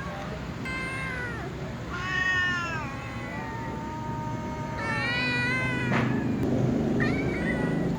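Kittens meowing repeatedly: about five drawn-out meows, several falling in pitch at the end, the loudest about two seconds in.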